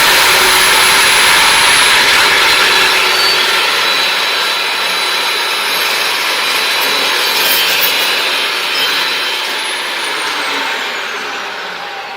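DeWalt DW872 14-inch cold saw, its carbide-tipped blade cutting slowly through a clamped metal piece: a loud, steady grinding cut with a high whine. Near the end the sound eases off and the whine falls in pitch as the saw winds down.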